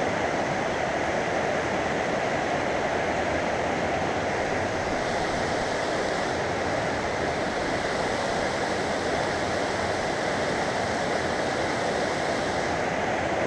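Small mountain stream rushing over shallow rocks, a steady water noise; about five seconds in the hiss turns brighter and stays that way until near the end.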